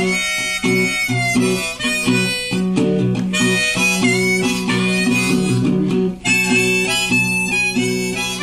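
Harmonica playing a melody of held and changing notes over resonator guitar accompaniment. There is a brief break about six seconds in.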